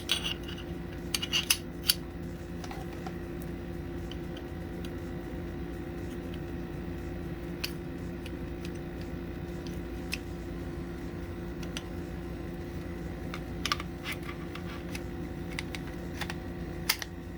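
Scattered light clicks of Taurus TX22 pistol parts being handled as the pistol is put back together, with a small cluster at the start and another near the end. A steady low hum runs under them.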